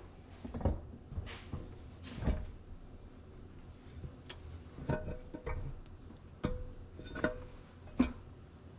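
Metal struck with a hammer at an irregular pace, each blow ringing briefly: several taps on the steel parts of a tractor's torque amplifier assembly while working a big nut loose.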